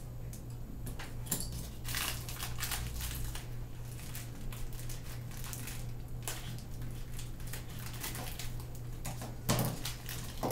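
Plastic packaging crinkling and rustling with irregular clicks, as small plastic toy parts are unwrapped and handled, over a steady low hum.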